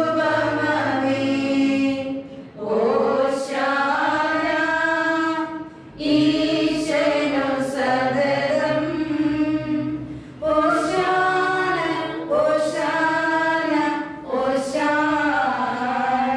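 Voices singing a slow liturgical hymn at Mass, in long held phrases with short pauses for breath between them.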